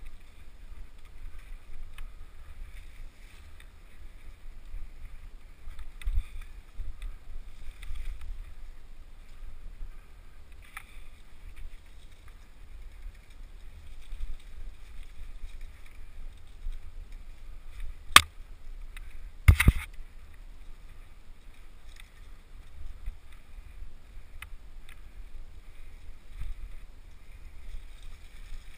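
Mountain bike riding fast down a dirt forest trail, heard from a helmet-mounted camera: a steady low rumble of wind and trail noise. Two sharp knocks about a second and a half apart, roughly two-thirds of the way through, are the loudest sounds.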